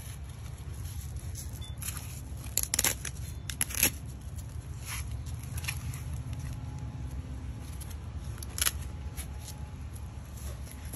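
Hook-and-loop (Velcro) fasteners of a ThunderShirt dog wrap being pulled and pressed shut, short rips and crackles about three and four seconds in and again near nine seconds, over a steady low rumble.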